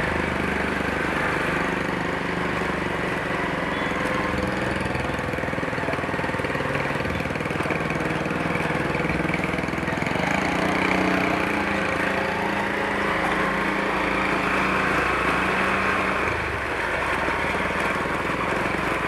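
Motorcycle engine running steadily while riding, mixed with road and wind noise.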